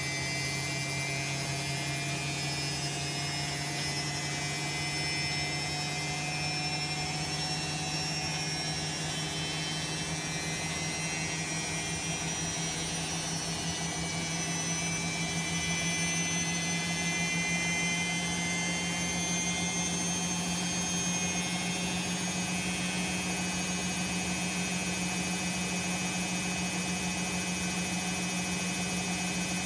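Bosch WAE24162GB03 washing machine's drum motor running steadily, its hum and whine rising slowly in pitch as the drum speeds up in the spin.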